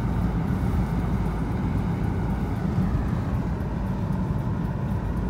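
Steady low rumble of engine and tyre noise inside a Lada Vesta Cross's cabin while it drives along.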